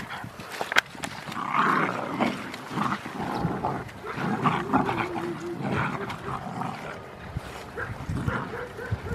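Rottweiler puppies growling in play as they tug and wrestle together over a cloth toy, in short irregular bursts. A sharp click about a second in.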